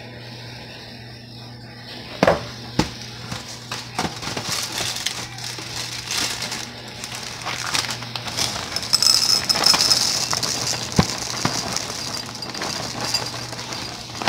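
A cereal box and its inner plastic bag being handled and crinkled open, with a few sharp clicks, then Apple Jacks cereal pouring into a ceramic bowl as a steady dry rattling rush, loudest about two-thirds of the way through.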